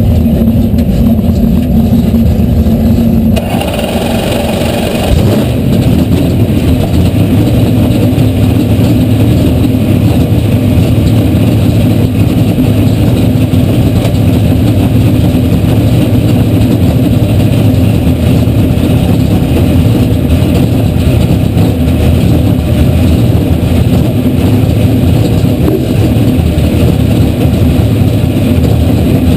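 NHRA Pro Stock drag car's 500-cubic-inch naturally aspirated V8, heard from inside the cockpit, running loudly and steadily with the car standing still. There is a brief change in its sound about four seconds in.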